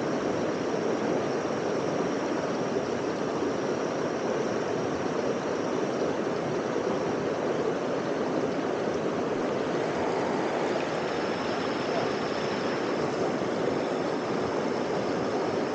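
Waterfall and stream water rushing steadily, an even roar that does not change.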